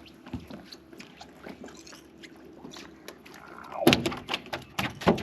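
Knocks and clatter of gear being handled on a fishing boat: scattered light clicks, then a loud cluster of thumps about four seconds in and another near the end.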